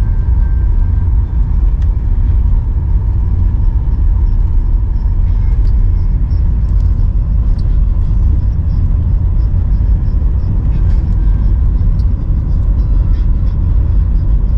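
A car driving, with a steady low rumble of road and engine noise heard from inside the cabin.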